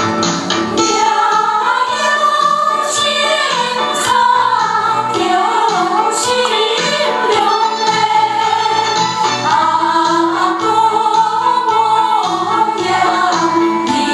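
A Hakka song sung live by several voices over amplified backing music.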